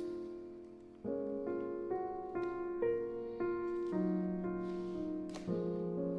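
Background solo piano music: a gentle melody of single notes and chords struck about every half second, each ringing and fading.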